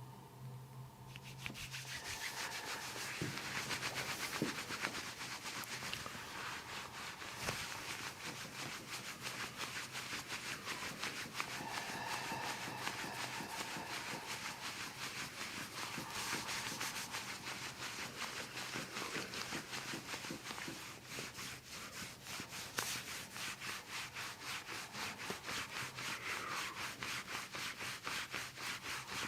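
Rhythmic rubbing of hands over the patient's body in quick, repeated strokes, a massage; it starts about a second in.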